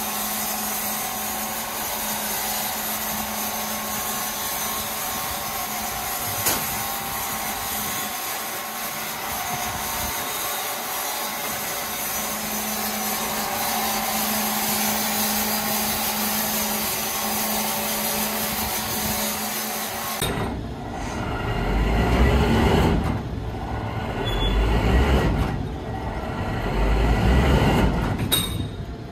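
Wood-sawing machinery running steadily with a low hum. About twenty seconds in the sound changes abruptly to a deeper, louder run that swells three times.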